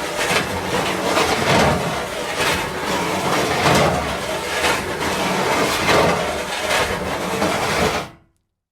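Metal sheets sliding and scraping against each other in one continuous rasping stretch, swelling into a louder stroke about once a second, then stopping abruptly shortly before the end.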